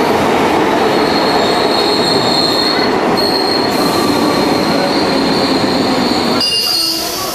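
Calcutta Metro train running through an underground station: a loud, steady rumble of wheels on rail with a high, sustained wheel squeal over it. It stops suddenly about six and a half seconds in.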